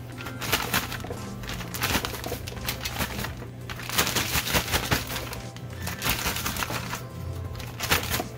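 A plastic bag crinkling and rustling in several bursts as dough balls are shaken in cinnamon sugar to coat them, over steady background music.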